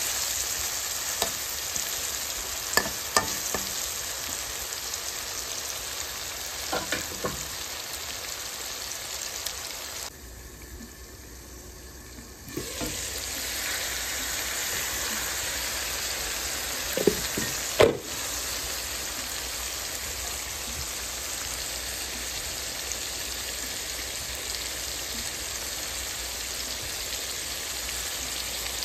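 Potato and tomato curry sizzling in oil in a wok, with a spatula scraping and clicking against the pan during the first several seconds and again briefly about 17 seconds in. The sizzle drops away for about two seconds around ten seconds in, then carries on steadily.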